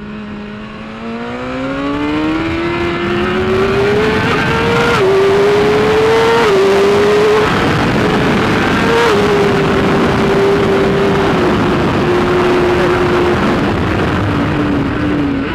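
BMW S1000RR inline-four engine through a Hindle full exhaust, accelerating hard and shifting up through the gears. The note climbs and drops sharply at each of three upshifts in the first nine seconds, then holds and slowly eases off.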